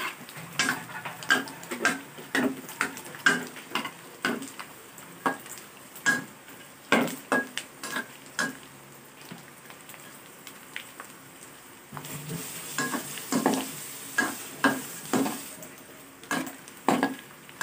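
A metal spoon stirs pork-skin chicharon frying in oil in a metal wok, with repeated quick clinks and scrapes against the pan over a steady sizzle. The stirring eases off for a few seconds in the middle, and the sizzle grows louder about twelve seconds in.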